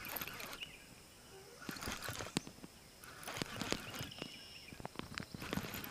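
Baitcasting reel being cranked as a hooked bass is reeled in: a run of irregular clicks and ticks.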